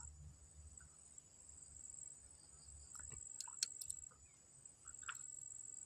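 Faint, steady high-pitched insect trill, with a few light clicks about halfway through and again near the end.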